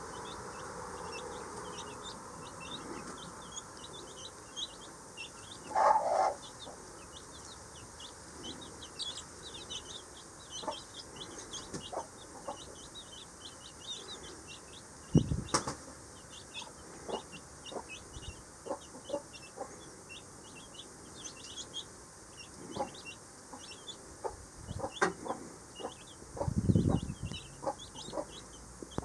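Baby chicks peeping: a steady stream of short high peeps, several a second, with a few low thumps scattered through.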